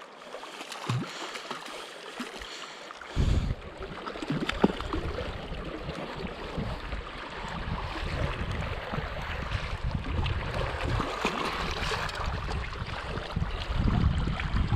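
River water rushing steadily. From about three seconds in, a low irregular buffeting rumble joins it, typical of wind or handling on the microphone.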